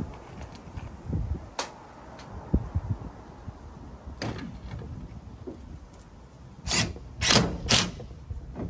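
Tin roofing sheet knocking and rattling while screws are driven through it with a cordless drill. There are scattered sharp knocks, and three short, loud bursts close together about seven seconds in.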